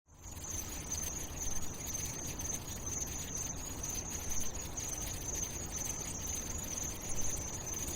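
Steady ambient background: a continuous high-pitched chirring band over a low rumble, setting in at the start and holding without change.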